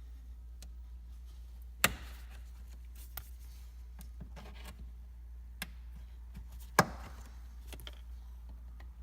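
Plastic trunk-lining clips being pried out with a flathead or clip tool: two loud, sharp snaps about five seconds apart, with a few lighter clicks between them, over a steady low hum.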